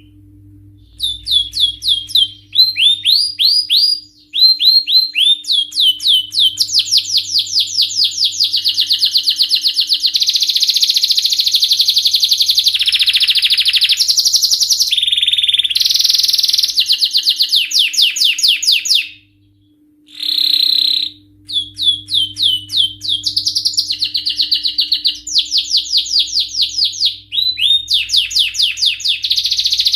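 Canary singing a long song of fast repeated trills and rolling notes, with a brief pause about two-thirds of the way through before the song resumes.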